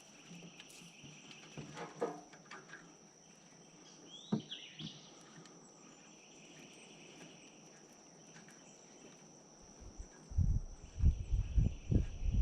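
Outdoor ambience: insects buzzing steadily at a high pitch, with a few short bird chirps. About ten seconds in, loud low thumps and rumbling start.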